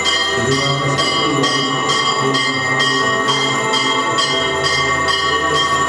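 Bells ringing rapidly and evenly, about two strokes a second, with the tones ringing on between strokes. This is the ringing that marks the blessing with the raised monstrance at benediction.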